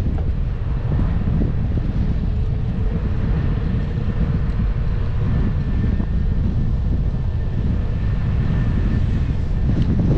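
Wind buffeting the microphone in a steady low rumble while riding a bike, with a faint steady drone underneath.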